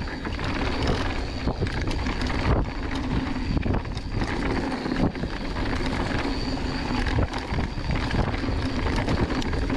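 Mountain bike descending a dirt singletrack: a steady rush of air and tyre noise, with frequent short rattles and knocks as the bike runs over rough ground. A steady buzz runs underneath.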